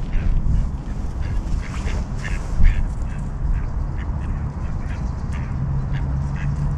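Mallard ducks giving a series of short quacks over a steady low background rumble.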